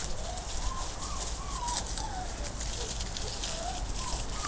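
Weimaraner puppies whining in play, a run of short high-pitched wavering cries, over the crackle of dry leaves under their paws.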